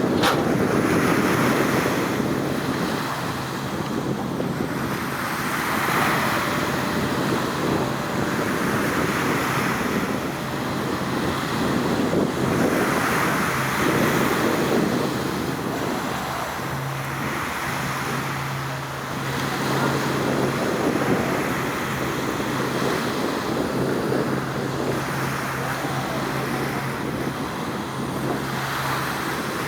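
Wind buffeting the microphone over the rush of sea water, swelling and easing every few seconds. A low, steady hum joins about halfway through.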